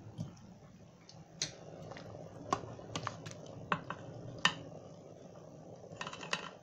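Metal slotted spoon clicking and tapping against a stainless steel cooking pot and a bowl while scooping stewed chicken pieces out of the stock: a dozen or so sharp, irregular clinks over a faint low hum.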